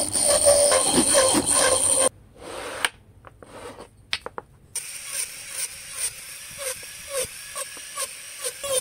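A wooden wheel blank spinning in a motor-driven chuck while a hand chisel cuts into it, a loud rough cutting over a steady motor whine that stops abruptly about two seconds in. After a quieter stretch with a few light clicks of wooden pieces being handled, a rotary tool whines as its small burr cuts tread notches into the wooden wheel in short repeated strokes, about two to three a second.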